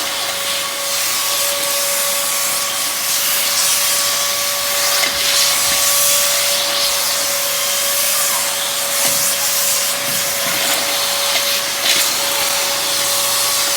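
Vacuum cleaner running steadily with a constant whine, sucking up the loose grout powder left in raked-out tile joints.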